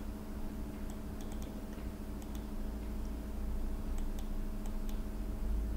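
Scattered light clicks of a computer mouse, some in quick runs of two or three, over a steady low hum.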